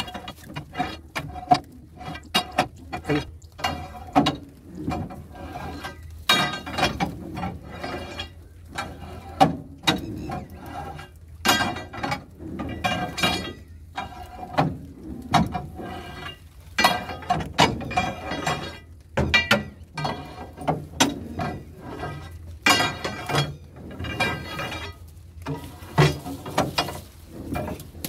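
Metal bar striking and scraping against the threshing drum of a Malkit combine harvester: repeated irregular clanks with a metallic ring, as a drum jammed with crop is worked free by hand.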